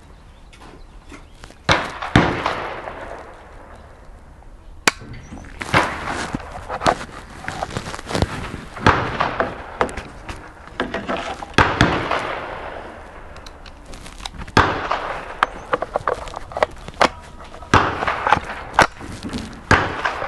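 Ruger 10/22 rifle fitted with a muzzle brake firing a string of sharp shots at an uneven pace, each cracking out and trailing off in an echo.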